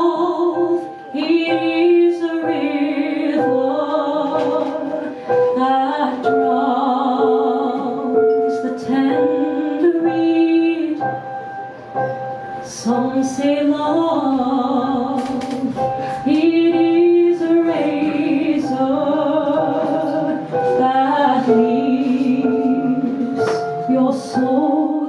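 Background song with a female voice singing long, wavering held notes over a sustained instrumental backing; it fades out just after the end.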